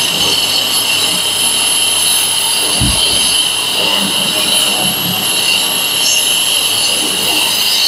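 Boda brushless wall chaser motor running at speed with a loud, steady high-pitched whine. There is a brief low thump about three seconds in.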